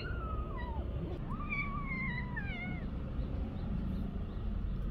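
A cat meowing twice: a short meow that rises and then drops, and then a longer one that slides slowly down in pitch.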